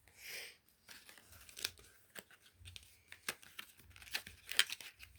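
Packaging rustling and crinkling as the kit's colour sticker sheets are slid back into their packet: a short sliding swish at the start, then scattered small clicks and crackles, busiest about four seconds in.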